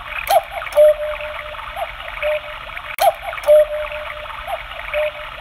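Quartz cuckoo clock's electronic cuckoo call sounding twice, each two-note cuckoo about three seconds apart, over a steady rushing background with small chirps. It is the clock striking the hour, with its cuckoo bird out in the open door.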